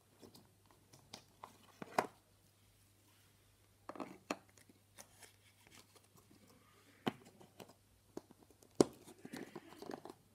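Hands squishing slime and handling plastic slime tubs: scattered sticky crackling and squelching, with several sharp plastic clicks and knocks.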